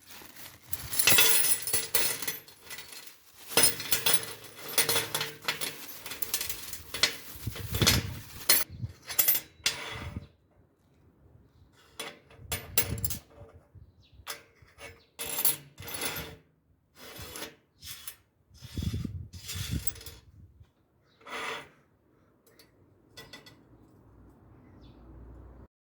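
Irregular clicks, knocks and scraping of something mechanical being handled, thick and busy for the first ten seconds, then in scattered bursts with short gaps.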